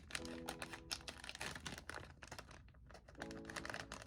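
Rapid, irregular crackling clicks of a plastic blind-bag package being handled and torn open by hand.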